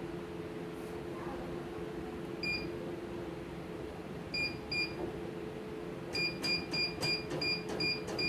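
Key-press beeps from a CNY computerised embroidery machine's control panel as its buttons are pressed. There is one short beep, then two, then a quick run of about three a second near the end, over a steady low hum.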